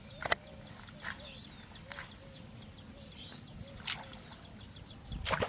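Rural pondside ambience: birds chirping and a repeated call about twice a second over a faint steady insect buzz. It is broken by a few sharp clicks, the loudest about a third of a second in, and a short splash about four seconds in as a hooked fish breaks the surface at the float.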